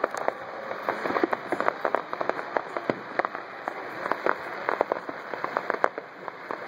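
Fireworks crackling: a dense, irregular run of sharp pops and snaps over a steady hiss.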